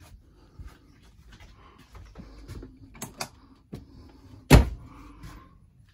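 Footsteps across a floor with scattered light knocks and clicks, and one sharp, loud thud about four and a half seconds in.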